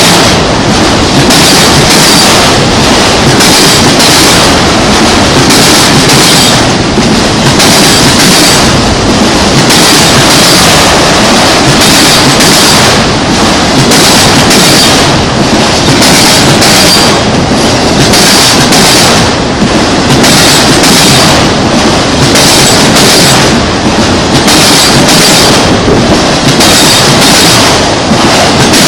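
Norfolk Southern freight train rolling past close by: a loud, continuous rumble and clatter of steel wheels on rail, pulsing every second or so as the cars go by, with a faint high wheel squeal.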